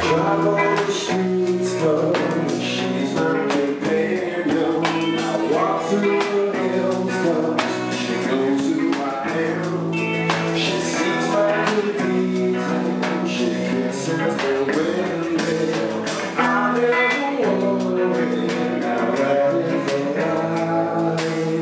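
Live band playing a song at full volume: drum kit hits under sustained instruments, with a voice singing over them.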